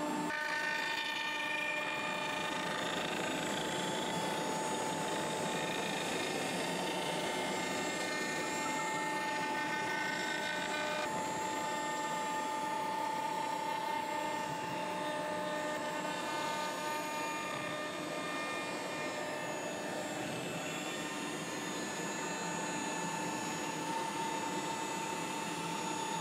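CNC router spindle running with a steady whine as its bit cuts a groove into a wooden board.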